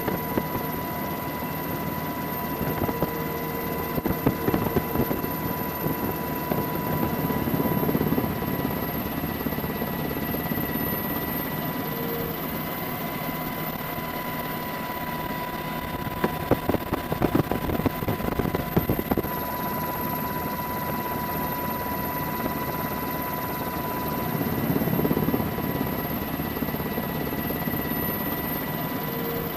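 Helicopter engine and rotor noise running steadily under a constant high whine, with irregular buffeting gusts several times.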